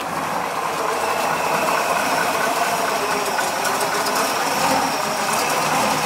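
Freshly started 454 cubic-inch big-block Chevrolet V8 in a 1967 Pontiac GTO, idling steadily.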